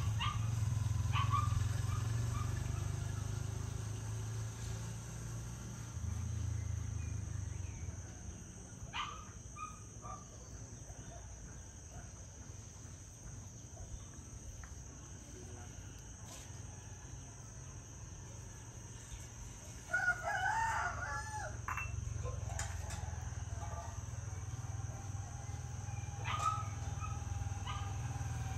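Rural outdoor ambience: a rooster crows once, about twenty seconds in, the loudest sound, over a steady low rumble and a constant high-pitched whine, with a few short bird chirps scattered through.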